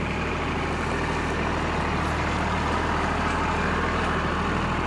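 Automated container-seedling sowing line running: a steady machine hum with a fast rattle as it fills the containers, punches the holes, drops the seeds and tops them with sand.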